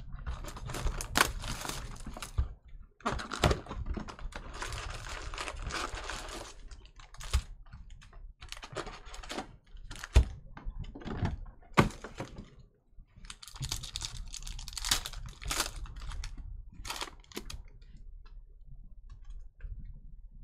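Foil card packs from a 2019-20 Panini Mosaic Fast Break basketball box crinkling and tearing open in several bouts, amid sharp clicks and taps of the cardboard box and cards being handled.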